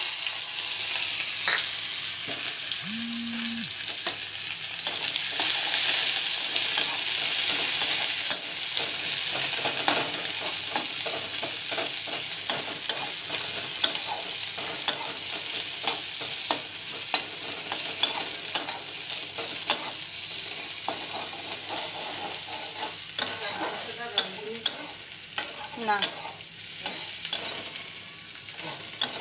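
Chopped onion, garlic and ginger frying in hot oil in a kadai. The sizzle is loudest at first and slowly dies down, and in the second half a spatula knocks and scrapes against the pan about once a second as it is stirred.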